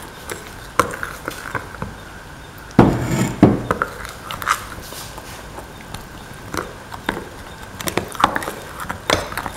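A metal spoon stirring thick batter in a bowl: irregular clicks and scrapes of the spoon against the bowl, with a couple of louder knocks about three seconds in.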